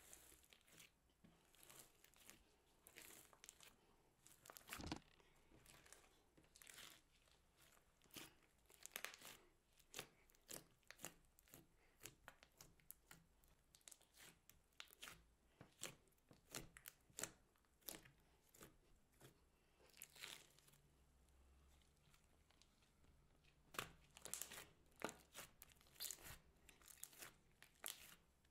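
Hands kneading, squeezing and pulling apart a big mass of mixed slime with foam beads in it, giving faint, irregular sticky pops, crackles and tearing sounds.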